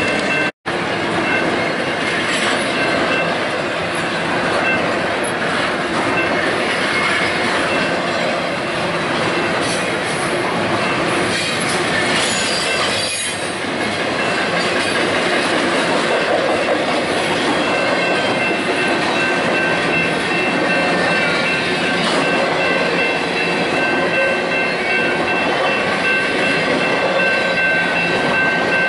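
Double-stack container freight train rolling past close by, a steady loud rush of wheels on rail. From about two-thirds of the way through, a thin high steady squeal from the wheels rides over it. The sound cuts out for an instant near the start.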